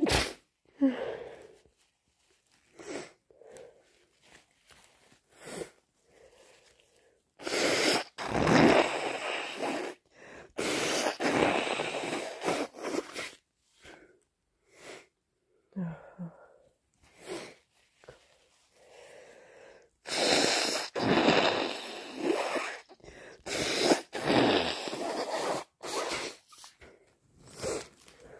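A person with a heavy, snotty head cold blowing a congested nose, four long wet blows of two to three seconds each with short sniffs and snorts between them.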